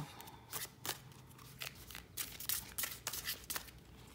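A deck of oracle cards being shuffled by hand: a run of quick, irregular papery snaps and rustles, several a second.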